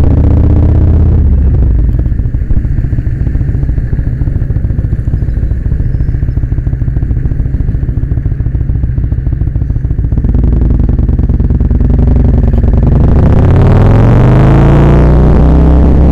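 Kawasaki Vulcan 1600 Nomad's V-twin engine under way: it runs quieter and steady for several seconds, then from about ten seconds in the revs climb, rising in pitch as the bike accelerates, with a shift and a second rise near the end.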